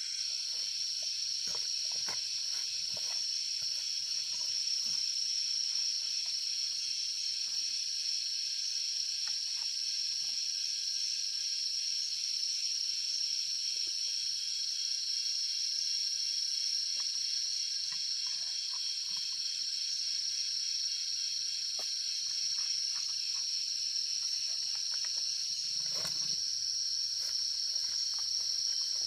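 A steady, high-pitched chorus of insects, unbroken throughout, with faint scattered rustles and a soft knock near the end.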